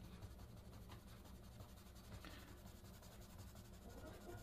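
Faint scratching of a graphite pencil on paper as a narrow band of a drawing is shaded in with short strokes.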